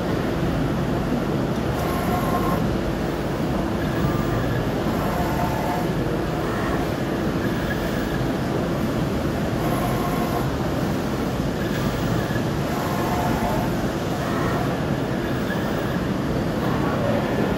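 CNC tube bending machine running through a bend cycle over a steady mechanical hum, with short whining tones every few seconds as its axes move the tube.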